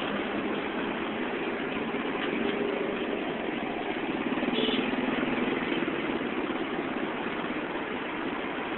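Engines of slow, congested city traffic heard from a vehicle moving in it: a steady low engine hum over road noise, a little louder about halfway through.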